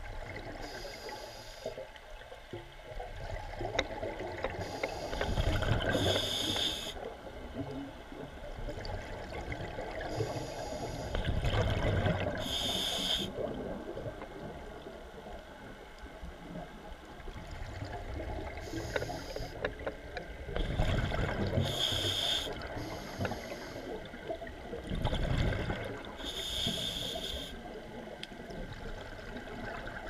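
Scuba diver breathing through a regulator: short hissing inhalations and about four rounds of exhaled bubbles rumbling, heard through the camera's underwater housing over a steady underwater hiss.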